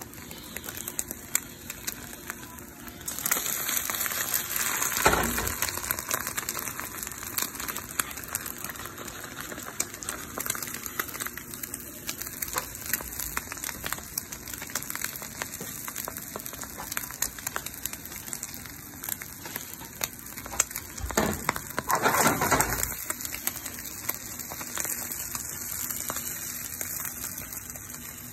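Eggs frying in a pan, a steady sizzle full of fine crackles, with brief louder surges about five seconds in and again a little past twenty seconds.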